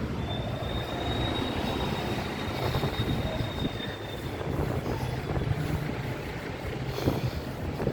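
Steady low rumble of vehicle noise, with a faint high-pitched whine over the first four seconds.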